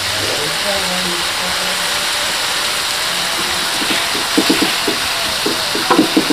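Shrimp, chicken and spring onions sizzling as they stir-fry in a wok. A wooden spatula scrapes and taps against the wok in quick runs of clicks about four seconds in and again near the end.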